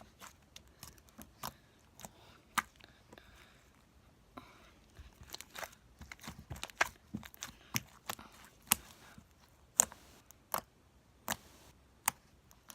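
Slime being kneaded and squished by hand, making irregular sharp clicks and pops.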